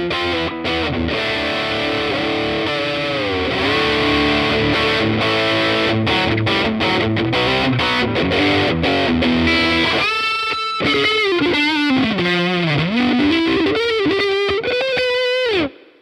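Electric Strat-style guitar played through a Laney CUB-Super 12 all-tube combo with the boost on and the gain cranked, giving a heavily distorted tone. It plays chords and then single-note lines with bent notes, and stops abruptly near the end.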